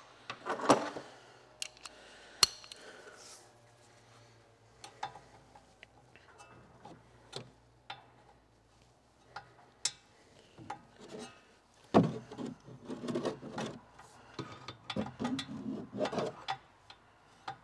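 Hand tools clicking and knocking as they are handled while a breaker bar is readied on a brake caliper bracket bolt. There is a sharp knock about twelve seconds in, followed by a few seconds of knocking and rattling.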